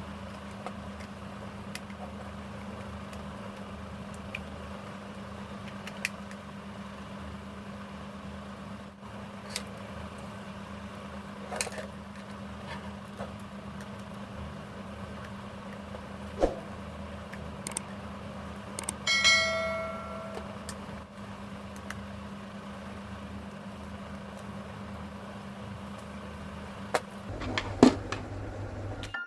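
A steady low hum with background hiss, broken by a few scattered small clicks and knocks, and one short pitched beep about two-thirds of the way through.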